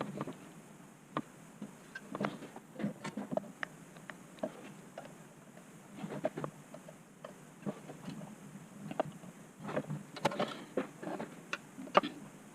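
Irregular small clicks, taps and light knocks of hands handling small parts and tools on a workbench, sometimes in quick clusters.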